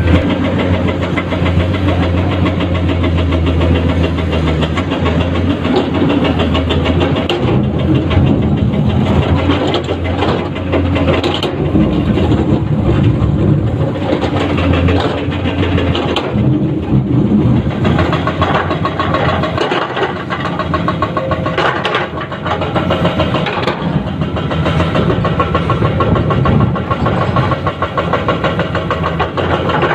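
Komatsu PC210-10 hydraulic excavator's diesel engine running under load while digging, its note shifting as the hydraulics work, with a few brief knocks.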